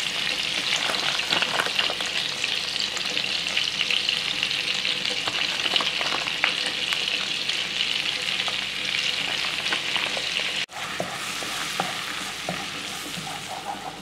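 Melted butter sizzling steadily in a frying pan while starch is stirred into it with a spatula, cooking a roux to thicken soup. About ten and a half seconds in the sound cuts out briefly, then the sizzle comes back quieter with small scraping ticks from the stirring.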